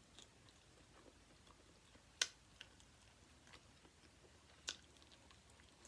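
Faint chewing and mouth sounds from eating chicken wings, with small ticks and two sharp clicks, one about two seconds in and one near the end.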